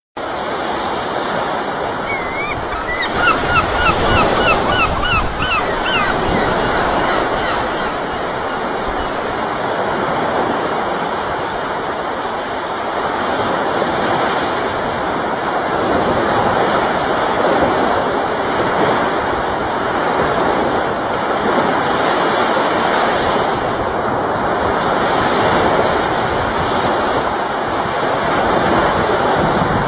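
Ocean waves breaking and washing on a beach in a continuous surge. About three seconds in, a gull calls in a quick run of about ten short, repeated notes.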